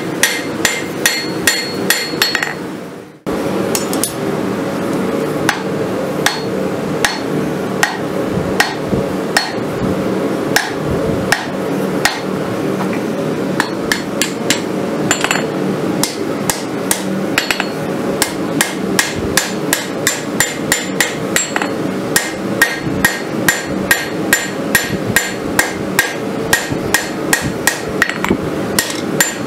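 Hand hammer striking red-hot rasp steel on a Cavalry anvil in a steady rhythm of about two to three blows a second, each blow with a short ring from the anvil. The blows break off for a moment about three seconds in, then carry on.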